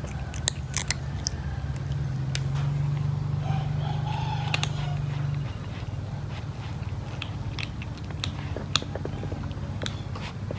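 A kitten crunching dry cat kibble: irregular sharp crunches and clicks as it chews, over a steady low hum.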